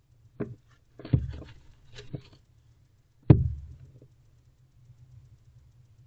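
Barn owl stomping its feet on the floor of a wooden nest box: a run of thumps over the first four seconds, the loudest about three seconds in.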